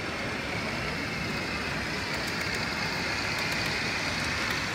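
Model 'plan U' diesel multiple unit running along the track, a steady running noise that grows slightly louder as the train comes closer.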